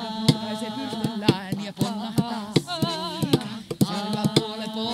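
A group of voices singing a cappella: long held notes that waver in pitch, over a steady low drone note. Sharp percussive knocks beat a quick, uneven rhythm through the singing.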